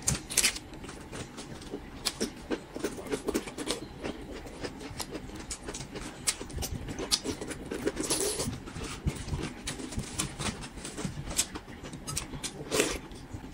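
Bamboo shoots having their husks peeled off by hand: a run of sharp clicks, crackles and tearing of the fibrous sheaths, with a longer tearing rasp about eight seconds in.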